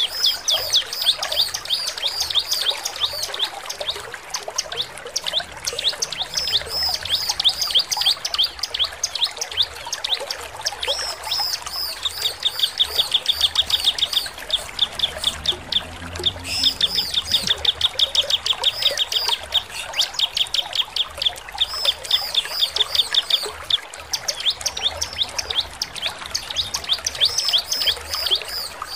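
Bar-winged prinia (ciblek) singing without a break: a rapid stream of high, sharp chirps, running into fast, even trills about twelve and seventeen seconds in.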